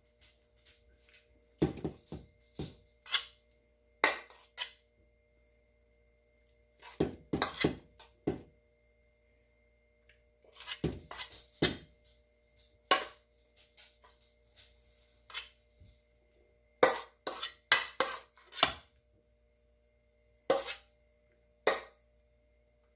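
Kitchen utensil clinking and scraping against a bowl and baking dish in scattered knocks, some single and some in quick clusters, while chicken mixed with mushroom soup is spooned into the dish.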